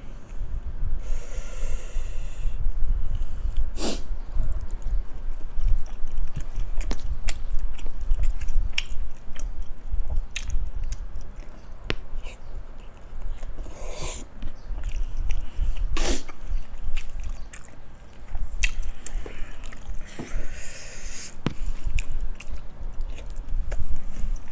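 Close-miked chewing and mouth sounds of someone eating, with sharp wet clicks and smacks scattered throughout and now and then a louder one.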